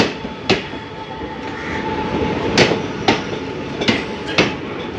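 Express train passing at speed, its wheels clacking over rail joints in pairs about half a second apart, three pairs over a steady rumble.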